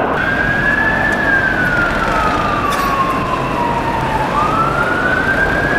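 Emergency-vehicle siren in a slow wail: a short rise, a slow fall over about three seconds, then a rise again a little past four seconds in, over a steady wash of street noise.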